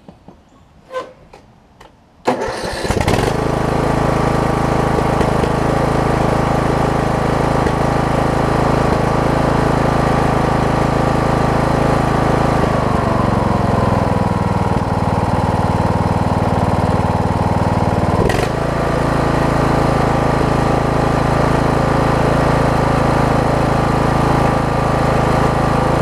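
Craftsman LT1000 riding mower engine starting on its electric starter and catching almost at once about two seconds in, then running steadily. This is the restart test after the mower has sat a couple of hours with a new carburetor, its low-speed jet drilled out, and a replacement starter. Its speed drops for several seconds around the middle and then comes back up.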